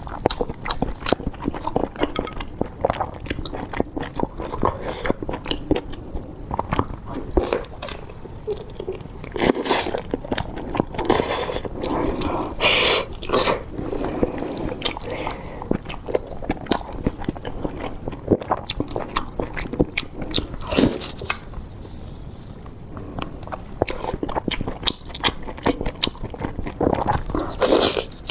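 Mouth sounds of eating a blood sausage in spicy sauce: biting, chewing and wet smacking and squelching of the casing and sauce, a dense run of short smacks. The loudest cluster comes about ten to fourteen seconds in.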